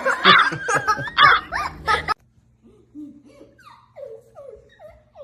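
People laughing loudly, several voices overlapping, until the sound cuts off abruptly about two seconds in. After that comes a much quieter run of short, falling vocal sounds over a low steady hum.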